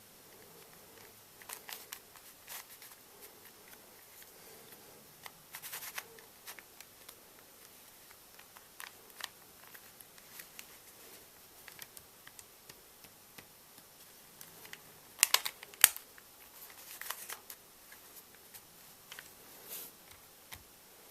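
Rubik's cube being turned by hand: scattered plastic clicks and clacks, with a quick flurry of louder clicks about three quarters of the way through.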